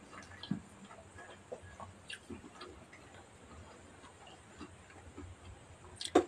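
Eating sounds: scattered soft clicks and smacks of chewing and of fingers picking rice and grilled milkfish off a plastic plate, with one sharp, loud smack near the end as a bite goes into the mouth.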